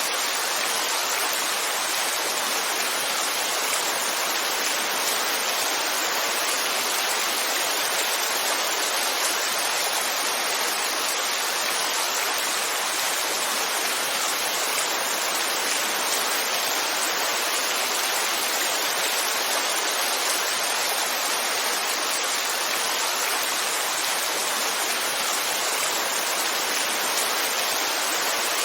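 Heavy rain falling: a steady, even hiss of water with no single drops, thunder or other sounds standing out.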